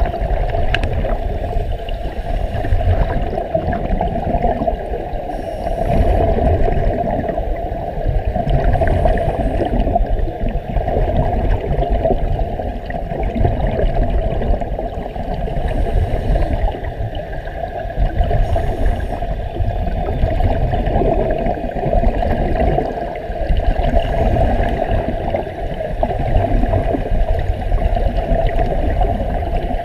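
Steady underwater rumble and gurgling of air bubbles streaming from divers' scuba gear and an air-fed diving helmet, heard through a submerged camera, with faint hissy bursts every few seconds.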